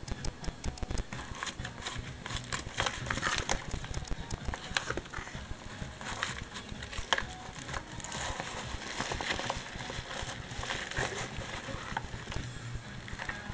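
Irregular light clicks and taps, many a second, over a steady low hiss.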